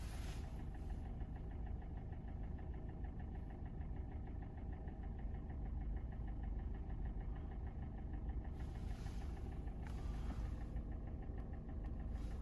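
Kia Sportage's G4NA 2.0-litre four-cylinder engine idling at about 800 rpm, not yet at operating temperature, heard from inside the cabin. A steady knock runs through the idle, too ringing for the cylinders to the owner's ear, who suspects the cam phasers or the valves.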